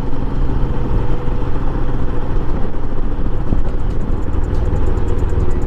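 Royal Enfield Himalayan's 411 cc single-cylinder engine running steadily while the bike cruises at road speed, with wind noise over the microphone.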